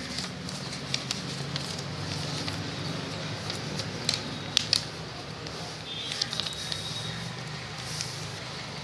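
A sheet of A4 paper being folded and creased by hand into a paper boat: rustling and crackling of the paper, with a few sharp paper clicks about halfway through.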